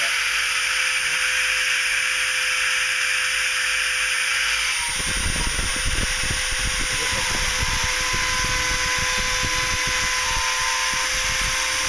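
A high-speed rotary tool, used as the spindle of a DIY CNC mill, runs with a steady high whine and hiss. From about five seconds in, a rougher, uneven low grinding joins as the engraving bit cuts into copper-clad FR4 board.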